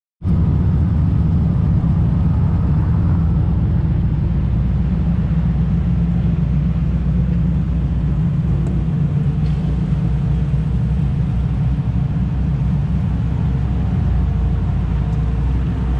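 TVR Chimaera and Griffith roadsters idling together, their Rover-based V8 engines giving a steady, deep idle.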